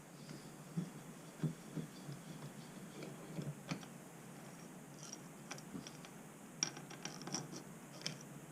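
Irregular light clicks and taps of metal vice parts and hand tools being handled while the milling vice is taken apart.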